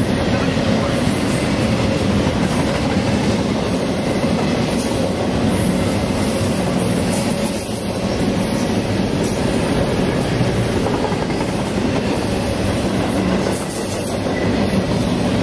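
Double-stack container freight train passing at speed: a steady, loud rumble of steel wheels running over the rails as the cars roll by.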